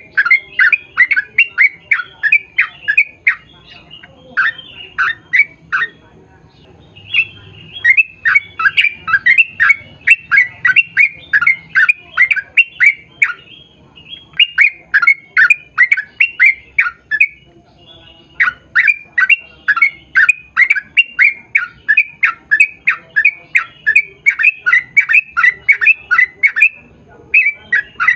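Yellow-vented bulbul (trucukan) singing in long, rapid runs of short chattering notes, each falling slightly in pitch, about three or four a second, with brief pauses between runs.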